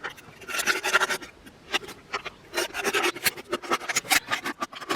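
Plastic bottle being handled and worked by hand: a busy, irregular run of scraping, rubbing and crinkling sounds.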